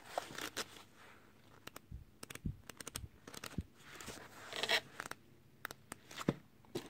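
Pages of a paperback book being flipped and handled: paper rustling and scraping in short swishes, with scattered sharp clicks and taps.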